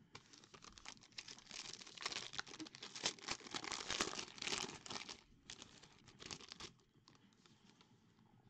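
Red foil trading-card pack crinkling and tearing in the hands as it is opened: a dense crinkling that is loudest in the middle and fades out about seven seconds in.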